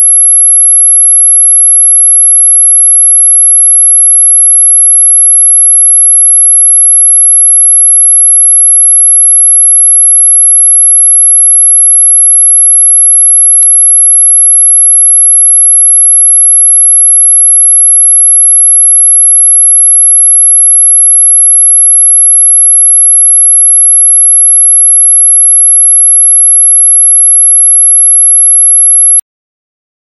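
A single steady, very high-pitched pure whistle tone of the kind sold as a dog whistle sound, held without any change and cutting off suddenly about a second before the end, with a faint click about halfway through.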